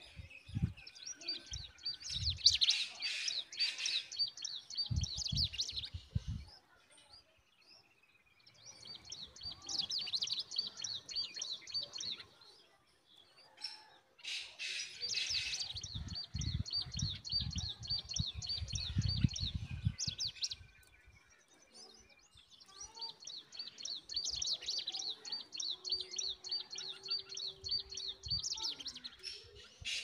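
Hungry bulbul nestlings giving rapid, high-pitched begging chirps in four bouts of several seconds each, separated by short pauses. Low thumps mix in near the start and again in the middle.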